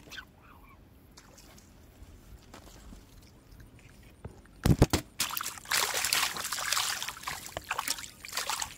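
Faint background for the first few seconds, then a sharp thump a little under five seconds in, followed by about three and a half seconds of splashing, trickling water.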